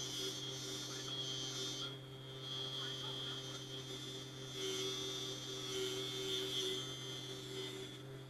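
Electric deburring spindle with an abrasive wheel running: a steady low hum under a high whine and hiss. The whine swells twice, once at the start for about two seconds and again from about four and a half to seven seconds in.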